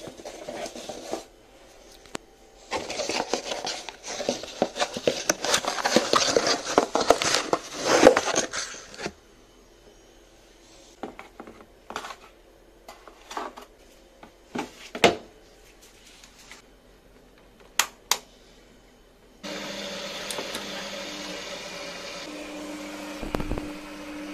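Laundry being pushed into a front-loading washing machine, with loud rustling of fabric for several seconds. Then come a few scattered clicks and knocks as the detergent drawer and door are handled. About 19 seconds in, the washing machine starts with a steady hum.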